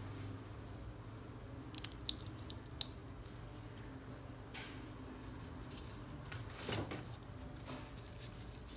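Small sharp metallic clicks, a quick run of them about two seconds in with the sharpest near three seconds, then soft rubbing later on. This is a Cartier Santos being put on the wrist, its clasp clicking and its rubber strap being handled.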